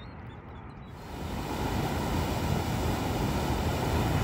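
Water pouring over a concrete canal gate, a loud steady rushing that comes in about a second in, after a stretch of faint background.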